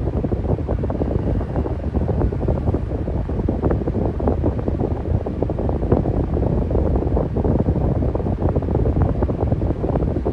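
Electric fan running steadily: a low rush of air with a fast, uneven flutter.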